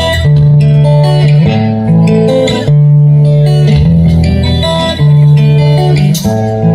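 Live band music through a PA system: guitars playing chords over long held bass notes that change every second or so, with no singing.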